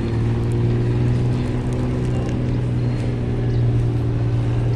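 An engine running steadily, a low, even drone.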